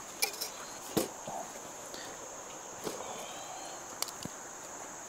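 A handful of light knocks and clicks as small pieces of wood are handled and fed into a small wood-burning camp stove, over a steady high drone of insects.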